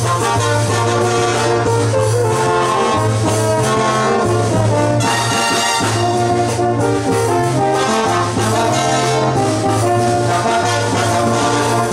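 Colombian brass band playing a porro tapao: a sousaphone holds a steady bass line of long low notes under euphoniums, trombones and trumpets playing together.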